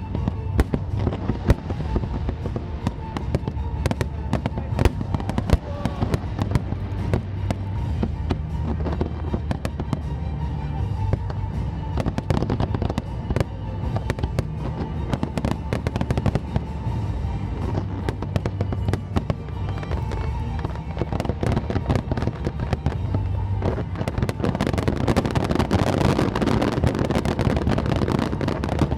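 Aerial fireworks bursting in rapid succession, many sharp bangs, over music played through loudspeakers. Near the end the bangs give way to a denser crackling hiss.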